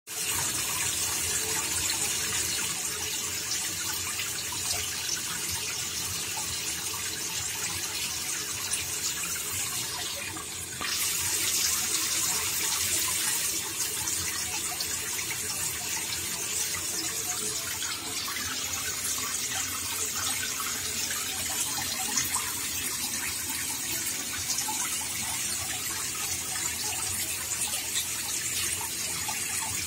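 Water running steadily into a tank, a continuous splashing hiss. It dips briefly about ten seconds in and comes back a little louder.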